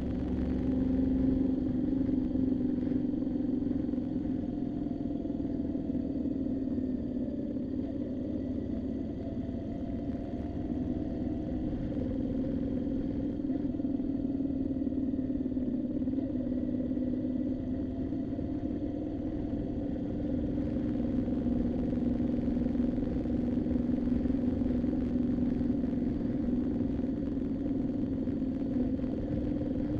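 Moto Guzzi V7's air-cooled V-twin running steadily under way, its pitch rising and falling gently with the throttle.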